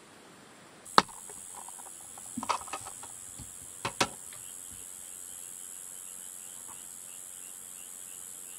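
A sharp click about a second in, then a cluster of lighter clicks and knocks, then two more clicks near the four-second mark. These are the lid of a small electric lunch-box rice cooker being unclipped and lifted off its cooked rice. A steady high insect chirring runs behind.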